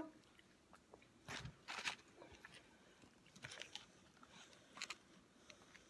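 Faint, scattered rustles and clicks of a cardboard chicken nugget box being handled and opened.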